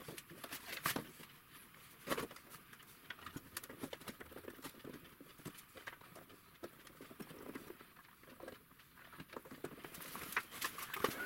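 Scattered light clicks and knocks of hands handling a steel lathe cutting tool and its small carbide plate on a workbench. Near the end a steady electrical hum sets in as the induction heater is switched on.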